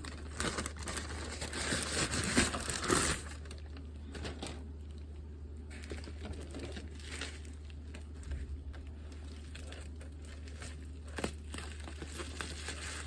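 Package wrapping being crumpled and torn open by hand, loudest in the first three seconds, then quieter rustling and handling clicks. A steady low hum runs underneath.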